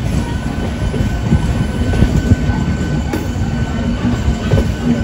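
Passenger train coaches rolling slowly through a station yard on a curve, wheels rumbling over the track with a faint steady wheel squeal, heard from an open coach doorway.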